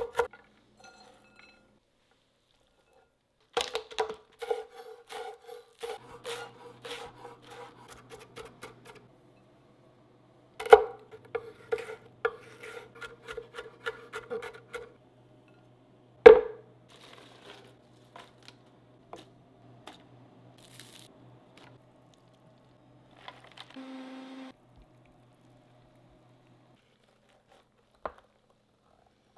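A chef's knife chopping cabbage and then green pepper on a wooden cutting board, in quick runs of strokes a few seconds long, with one sharp knock about sixteen seconds in. The last few seconds are mostly quiet apart from a single click.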